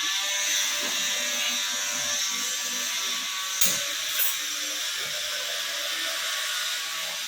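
A small handheld electric motor runs steadily with an airy hiss while dust is cleaned off the work. It stops just at the end, and two light ticks come through a little past halfway.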